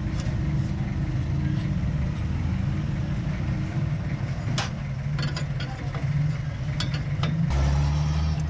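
Hino truck's diesel engine idling steadily, with a few short sharp clicks about halfway through.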